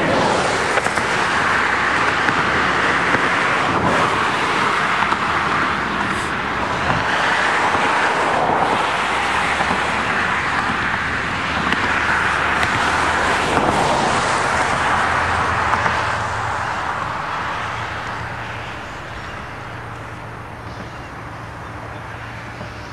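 Intermodal freight train rolling by: a steady rush of wheel and rail noise that eases off after about sixteen seconds, leaving a low steady hum of diesel locomotives.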